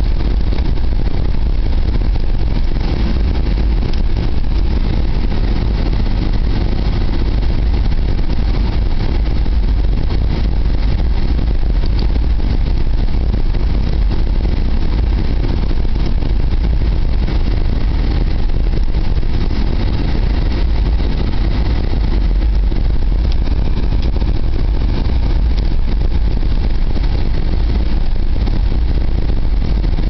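Car driving along a snow-covered street, heard from inside the cabin: a loud, steady rumble of engine and road noise.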